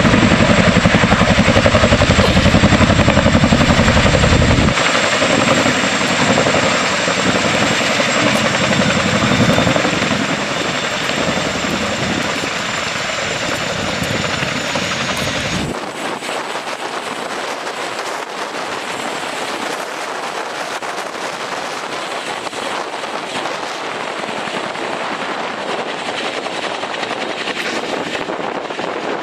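Boeing CH-47 Chinook tandem-rotor helicopter running close by, loud and steady at first. The sound drops abruptly about five seconds in and again about sixteen seconds in, leaving a quieter, thinner rotor and engine sound.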